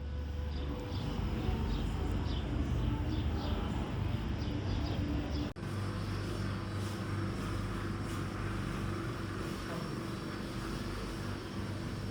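Steady low vehicle hum with a haze of road or wind noise, as from a moving vehicle, with a brief break about five and a half seconds in.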